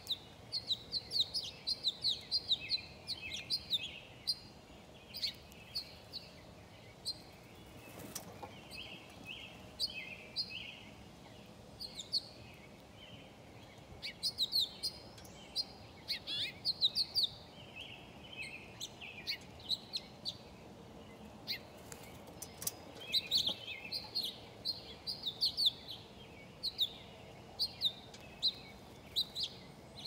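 Small songbirds chirping, many short, sharp high calls coming in quick runs, over a faint steady background hiss.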